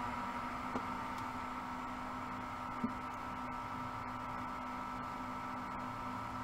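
Steady low hum and hiss of background recording noise, with a couple of faint short clicks about a second in and near three seconds.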